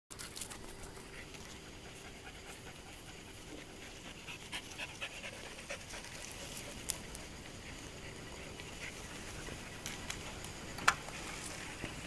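A dog panting close by, with scattered light clicks and one sharp click near the end.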